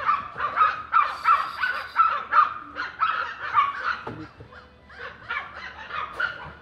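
Puppy yapping over and over in short, high yaps, about three a second, with a brief lull about four seconds in before it starts again.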